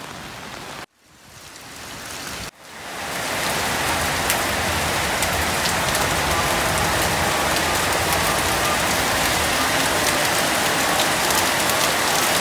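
Heavy rain pouring onto wet pavement and puddles, a steady hiss of water with faint drop ticks. The sound drops out twice in the first few seconds and fades back in, then holds steady and louder from about three seconds in.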